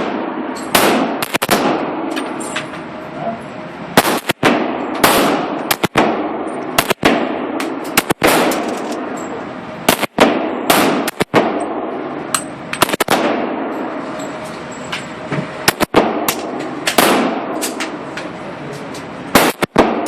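Gunfire on a shooting range: about twenty sharp shots at uneven intervals, some close together, each followed by an echo that dies away over about a second.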